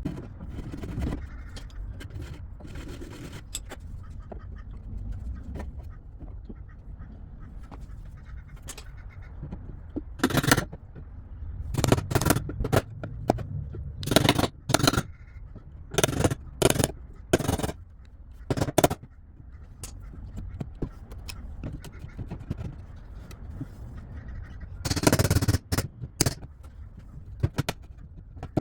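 Wood chisel cutting into the desk's timber to recess a drawer lock: a series of short, sharp scraping strokes, bunched in the middle, with a longer scrape near the end.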